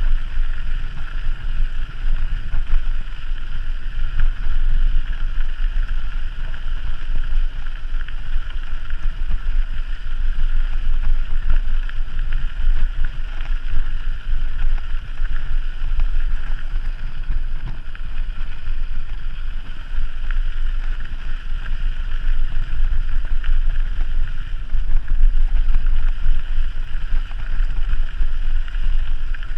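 Wind buffeting the microphone of a camera on a moving mountain bike: a steady, loud low rumble with an even hiss over it and no distinct events.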